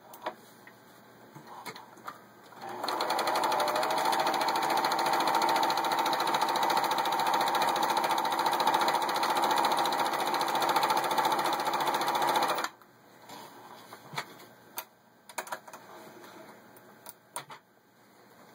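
Pfaff 297-1 sewing machine running steadily for about ten seconds as it stitches a decorative pattern, starting about three seconds in and stopping abruptly. A few light clicks sound before and after it runs.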